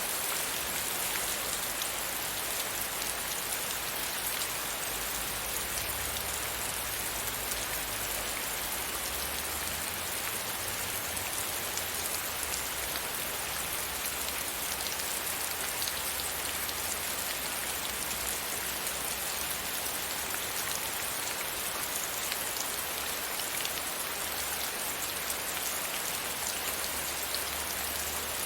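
Steady rain pattering against a window pane, an even hiss of drops with fine scattered ticks.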